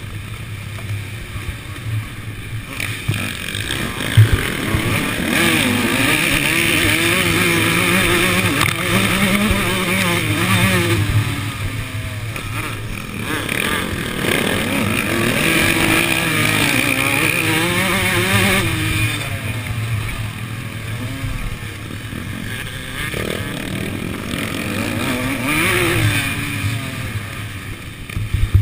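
Two-stroke Suzuki RM motocross bike engine, heard from close up on the bike, revving up and dropping off again and again as it is ridden hard round a dirt track. A sharp thump about four seconds in stands out as the loudest single sound.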